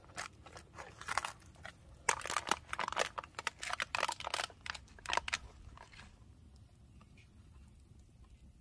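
Plastic spatula scraping and knocking against a disposable aluminium foil pan, with foil crinkling, as a brownie is cut and prised out: a quick run of short scrapes and clicks that stops about five seconds in.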